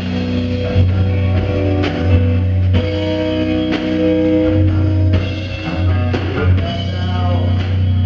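Live rock band playing a loud instrumental passage: electric guitars holding sustained notes and chords over a drum kit, with occasional cymbal crashes.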